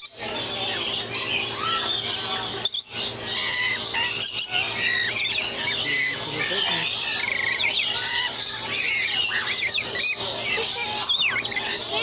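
Rainbow lorikeets squawking and chattering: a dense, constant stream of short, shrill calls from several birds overlapping, with a few brief breaks.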